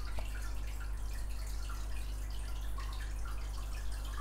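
Quiet room tone: a steady low hum with faint hiss and a few small, scattered ticks.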